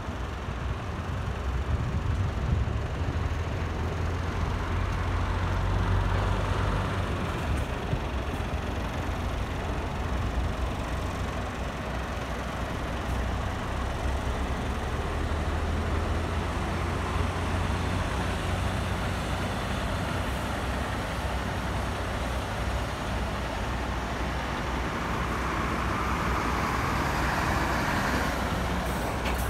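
Motor vehicle engine running with a steady low hum, over road-traffic noise that swells about six seconds in and again near the end.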